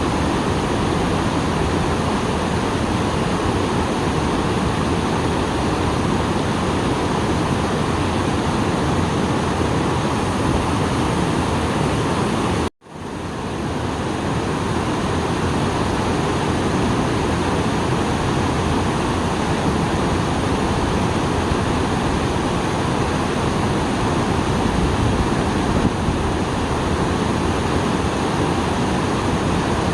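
Small waterfall swollen after rain, water pouring and splashing in a steady rush. About thirteen seconds in, the sound cuts out for an instant and quickly fades back up.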